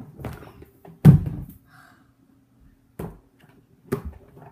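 Large hollow plastic bin being upended and knocked about as it is emptied: one heavy thud about a second in, then two sharper knocks later.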